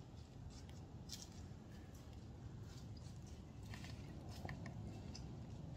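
Faint scattered crackles and clicks over a steady low rumble, bunched most closely about four seconds in.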